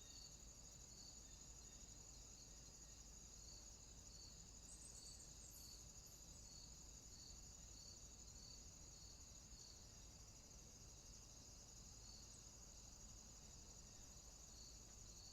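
Faint insect chirring, crickets by its pattern: a steady high trill with a lower chirp repeating about once every half second to second.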